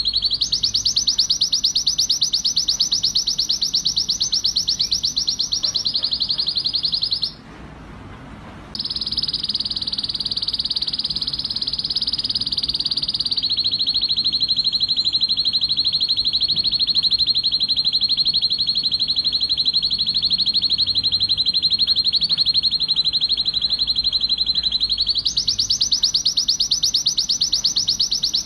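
Male red-factor canary singing a long, excited song of fast trills, switching to a new trill every several seconds, with one short break about seven seconds in. This is the aroused song of a male in breeding condition.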